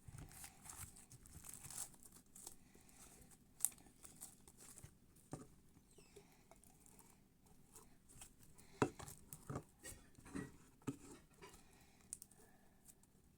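Hands kneading and stretching slime: faint sticky squishing with scattered small clicks and pops, a couple of them sharper.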